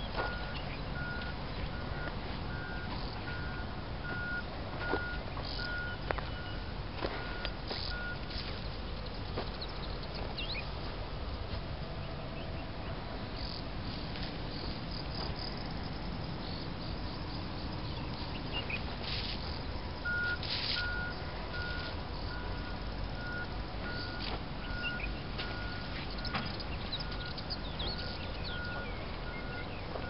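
Outdoor ambience in open scrubland: a steady rush of wind and handling noise, with a high, evenly repeated chirping pulse that runs for the first several seconds and returns about two-thirds of the way through, and a few short bird chirps in between.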